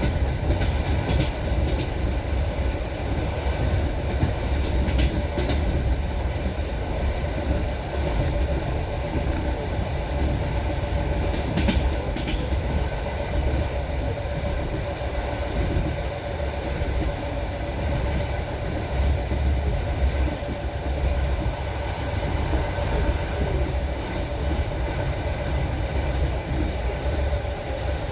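Train wheels clattering over rail joints with a steady rolling rumble, and a few sharper clicks.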